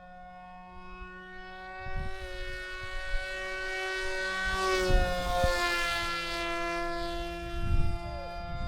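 Electric motor and propeller of a foam-board RC plane whining in flight, growing louder as it comes by and dropping in pitch about five seconds in as it passes. Low thumps of wind on the microphone run underneath.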